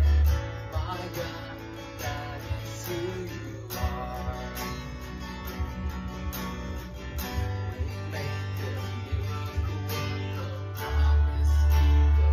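A man singing to a strummed acoustic guitar. The playing drops softer about half a second in and swells louder again near the end.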